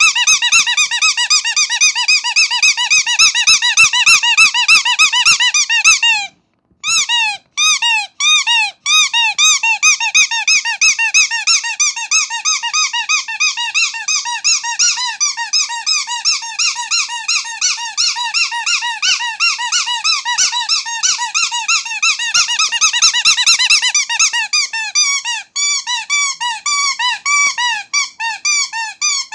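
Rubber starfish squeaky toy squeezed rapidly and repeatedly, several high squeaks a second, each a short rise and fall in pitch. The squeezing stops briefly about six seconds in, then carries on, spacing out somewhat near the end.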